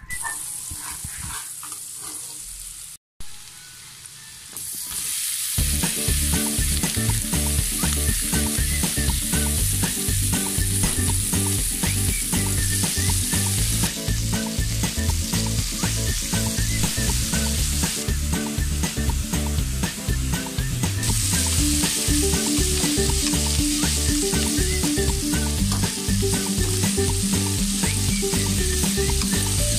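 Butter, then shredded chicken and button mushrooms, sizzling and frying in a wok, with a metal spatula stirring and scraping against the pan. Quieter for the first few seconds, much louder from about five seconds in.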